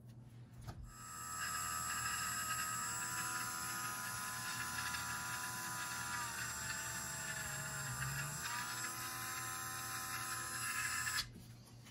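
Cordless Dremel 8220 rotary tool running with a steady high whine as it works a small plastic servo horn. It is switched on about a second in and cuts off suddenly near the end, its pitch dipping briefly about two-thirds of the way through as the bit bears into the part.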